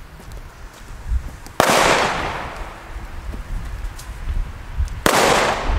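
Two firecrackers from an Xplode Silvestergewitter set going off, about three and a half seconds apart, each a sharp loud bang with a trailing echo.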